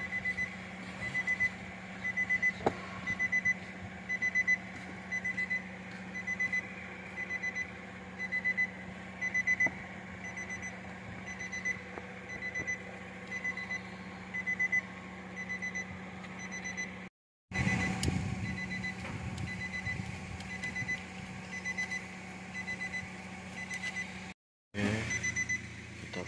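Nissan Navara's dashboard warning chime beeping over and over at an even pace, a high short beep every fraction of a second, over a steady low hum. The beeping breaks off briefly twice in the second half.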